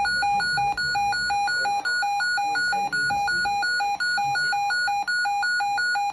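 Electronic emergency alert tone: a buzzy two-pitch warble alternating quickly between a low and a high beep, about three pairs a second, at a steady level with brief breaks about once a second.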